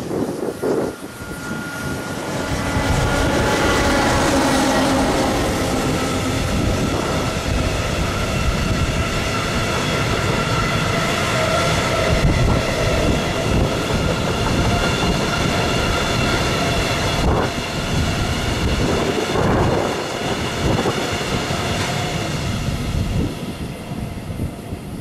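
Electric locomotive and a long train of bulk tank wagons passing close by: a steady rumble of wheels on rail, loudest as the locomotive goes by about four seconds in. High steady ringing tones run over the wagons, and the sound fades near the end as the last wagon passes.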